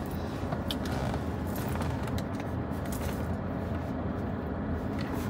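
Steady low rumble of a Mercedes-Benz GLA idling, heard inside the cabin, with a few light clicks about a second in.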